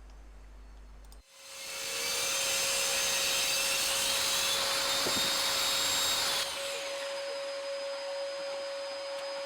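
Steady whooshing noise from a small electric motor, with an even hum and a high whine. It starts suddenly about a second in, stays loud for about five seconds, then drops to a lower, steady level.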